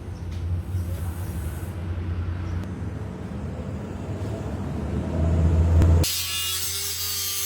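A steady low mechanical rumble that grows louder, then cuts off suddenly about six seconds in and gives way to a hissing, scraping sound like abrasive rubbing on a panel.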